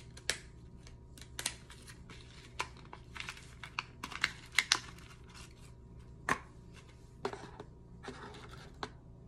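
A small cardboard box of press-on nails being handled and opened by hand: rustling and tearing of the packaging with scattered sharp clicks.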